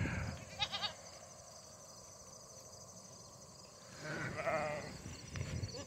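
Goats bleating: a short quavering bleat about half a second in, and a longer wavering one about four seconds in.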